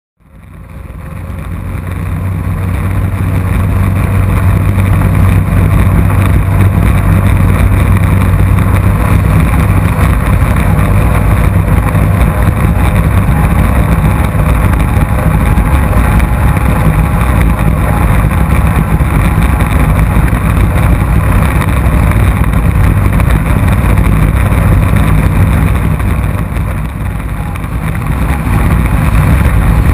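Racing powerboat's engine running hard at speed, a steady loud drone with the rush of the hull through the water. It fades in over the first couple of seconds and eases off briefly near the end before picking up again.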